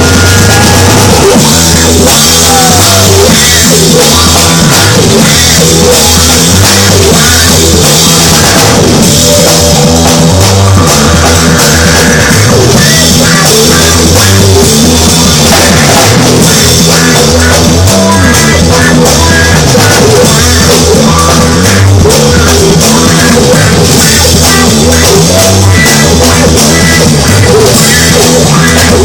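Loud rock music with a pounding drum kit beat and a repeating bass line, steady throughout.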